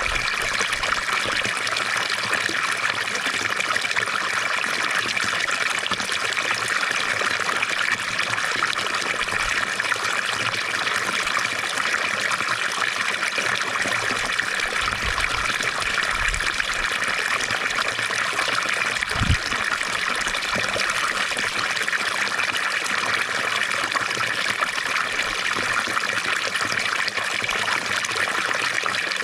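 Fountain water trickling and splashing steadily, with one brief low thump about two-thirds of the way through.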